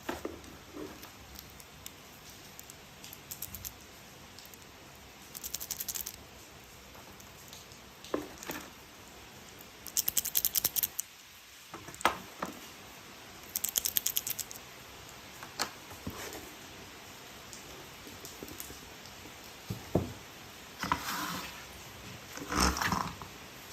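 Plastic toy train parts being handled: scattered knocks and clatter, with several short runs of rapid clicking like a ratchet.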